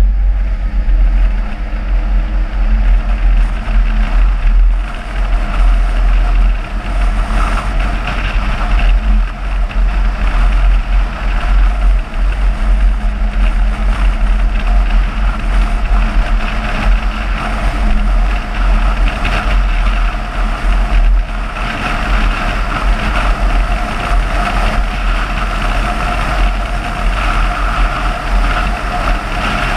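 A car driving at steady road speed: constant rumble of wind buffeting the microphone, with road and engine noise.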